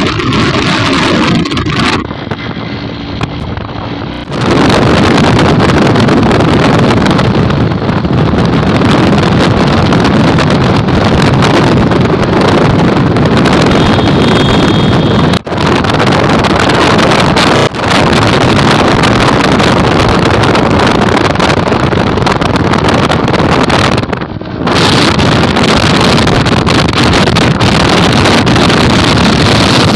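Loud rushing wind on the microphone of a moving vehicle, over the drone of its engine. It gets much louder about four seconds in and drops briefly a few times.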